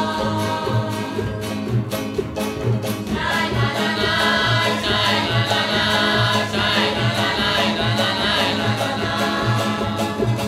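A group of voices singing a Hungarian Romani folk song together, over a steady beat and guitar accompaniment.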